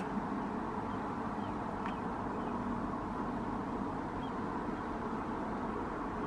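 Steady running noise of a car heard from inside, with a few faint, short high chirps.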